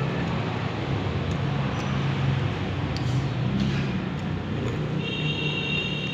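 Steady rumble of road traffic with a wavering low engine hum. A brief high-pitched tone sounds about five seconds in.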